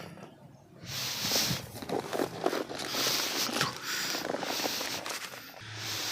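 Footsteps and rustling of clothing and gear as an airsoft player moves about, a run of irregular scuffing steps starting about a second in.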